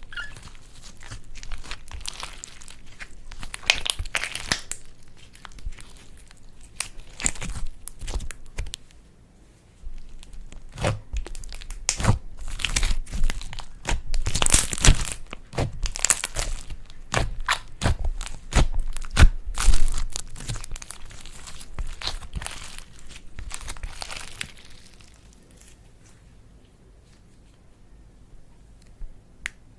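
Slime being worked by hand, pressed and stretched with dense crackling and popping clicks. It quietens in the last few seconds.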